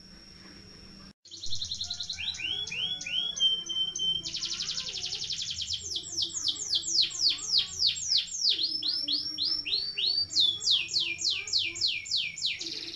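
Domestic canary singing a long rolling song: fast trills and runs of quick falling notes, several a second, starting about a second and a half in.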